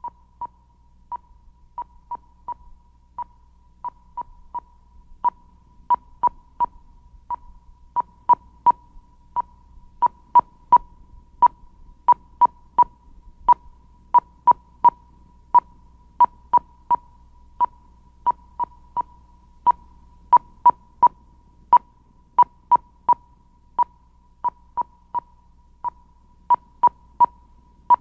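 Short electronic beeps, all at the same high pitch, coming in an uneven rhythm, often in twos and threes. They grow louder over the first several seconds, with a faint steady tone at the same pitch beneath them.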